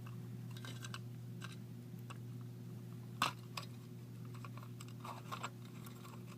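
Scattered small clicks and rustles of hands handling and turning a 1970s Vulcan Mark 6 smoke detector, one sharper click about three seconds in, over a steady low hum.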